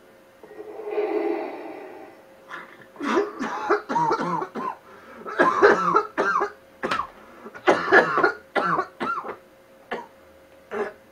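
A heavy breath drawn through a dust-mask respirator, then repeated short bouts of coughing from about two and a half seconds in, muffled by the masks.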